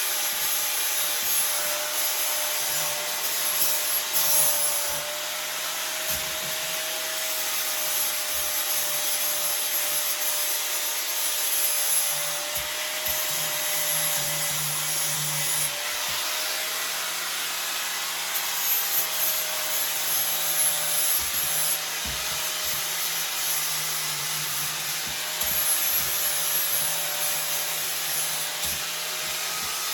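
Handheld electric grinder running continuously with a steady motor whine, its disc scraping against the steel pit bike frame to strip rust and paint; the scratchy grinding noise swells and eases as the tool is pressed on and lifted.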